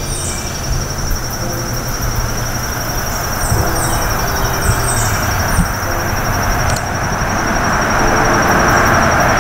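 A high, fast-pulsing insect trill held steady throughout, over a broad rushing noise that grows louder toward the end, with a few short high chirps.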